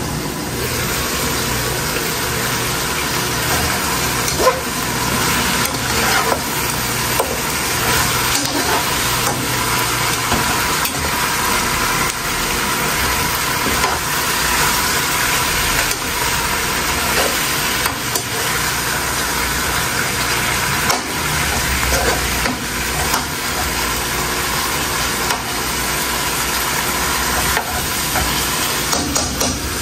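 Meat sizzling in a large pot on the stove while a slotted spatula stirs and scrapes through the pieces, with scattered clicks and knocks against the pot. The sizzle gets louder just after the start, as the glass lid comes off.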